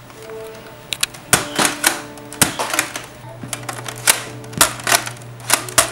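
Sharp plastic clacks and clicks from a Nerf toy blaster being handled, primed and fired, about ten of them at irregular intervals, over background music.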